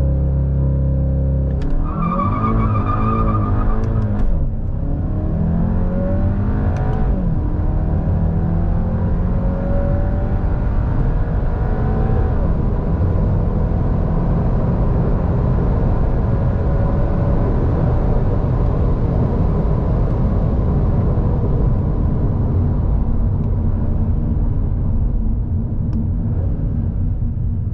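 2023 Volkswagen Golf GTI's 2.0-litre turbo four-cylinder holds steady revs briefly, then accelerates hard. The pitch climbs and drops at quick upshifts of its seven-speed dual-clutch gearbox about four and seven seconds in, then settles into steady engine and road noise at speed.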